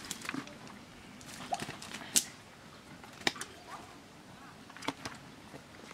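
A few sharp slaps and knocks, roughly a second apart, as fish are picked out of a cast net heaped on stone paving.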